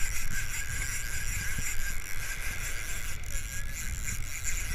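Penn TLD 15 lever-drag reel cranked steadily, a continuous mechanical whir, over low rumble from wind on the microphone and surf.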